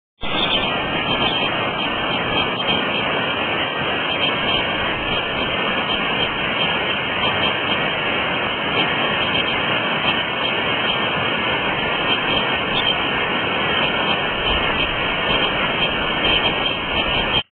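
Steady rushing of creek water, an even wash of noise that cuts off suddenly near the end.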